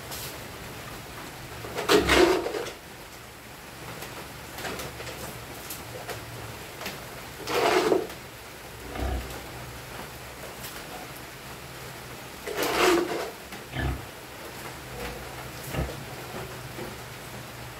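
Piglets in their pen letting out three loud, rough calls about five seconds apart. A few soft knocks come in between.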